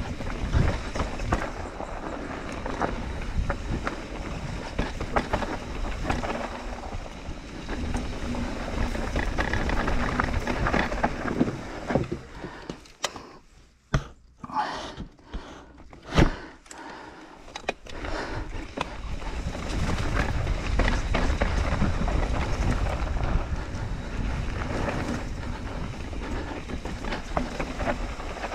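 Trek Slash mountain bike descending a trail, with the tyres rolling over the rough surface and the frame and chain rattling. It goes much quieter about halfway through, broken by two sharp knocks a couple of seconds apart.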